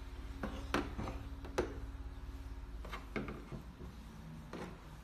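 Wooden bow drill parts knocking together and being set down on a plastic table: a handful of sharp, irregular clacks, the loudest about a second and a half in, over a steady low hum.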